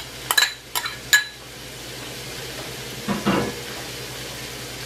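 About four sharp clinks in the first second or so as a small bowl knocks against the rim of a stainless steel pot while diced zucchini is tipped in, then steady sizzling of the vegetables frying in the pot.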